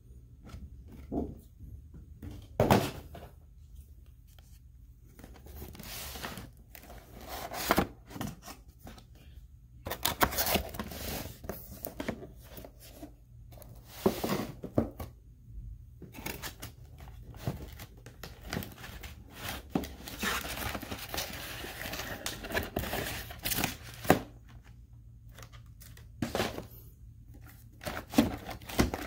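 Cardboard and plastic toy packaging being handled and unpacked: irregular rustling, scraping and crinkling, with a few sharp knocks.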